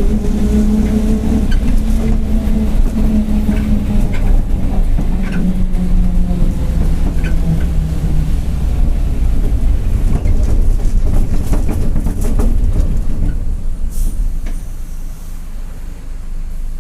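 Mercedes-Benz OF-1721 city bus under way, its differential growling: a pitched whine that drifts slightly and fades out about halfway through, over the engine's running and scattered rattles and clicks. Near the end the overall sound drops off.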